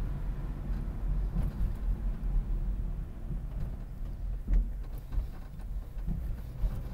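Car driving on a wet road, heard from inside the cabin: a steady low rumble of engine and tyres, with one brief thump about four and a half seconds in.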